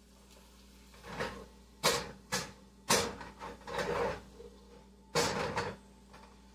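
Cookware knocks and clunks as a pot on the stovetop is handled: about six sharp knocks spread over four or five seconds, the last one longer and scraping.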